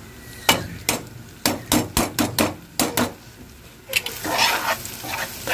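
Metal spoon knocking sharply against a non-stick frying pan, about nine quick knocks, as chopped peppers and onion are stirred. About four seconds in, the knocks give way to softer scraping and sizzling of the frying vegetables.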